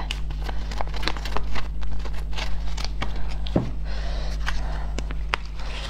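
Scissors snipping through a plastic food package, with crinkling and rustling of the plastic as it is pulled open, in many small sharp clicks. A steady low electrical hum runs underneath.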